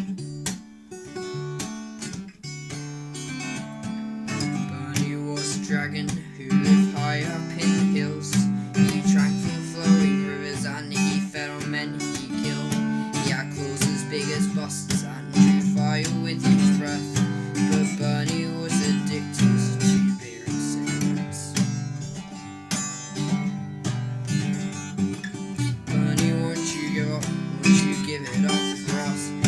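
Acoustic guitar strumming a song accompaniment.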